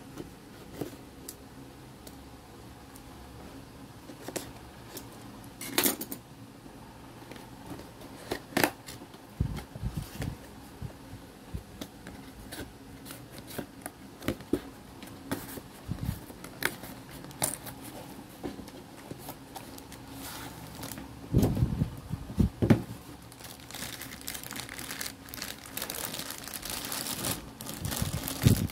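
Cardboard figure box being handled and opened: scattered taps, scrapes and clicks, with a few heavier knocks of the box about two-thirds of the way in. Near the end, clear plastic packaging bags crinkle steadily as the figure parts are pulled out.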